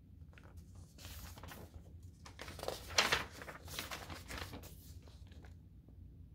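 Paper pages of a picture book being turned by hand: a run of rustles and swishes lasting about four seconds, loudest near the middle.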